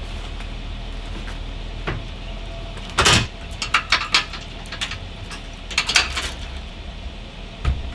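Steady low hum with a run of sharp clicks and knocks about three seconds in, more between three and a half and four and a half seconds, a cluster around six seconds and one near the end.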